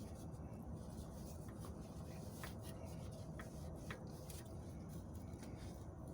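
Faint rubbing and handling noises from hands working over the engine, with a few light clicks scattered through, over a low steady background rumble.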